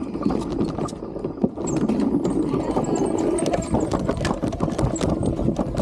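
Electric unicycle rolling over a rough, rocky trail: dense irregular clicks and knocks over a low rumble of wind and tyre noise.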